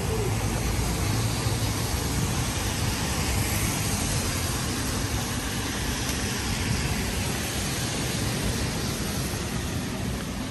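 Steady city street noise: a low vehicle rumble under an even hiss, holding level throughout.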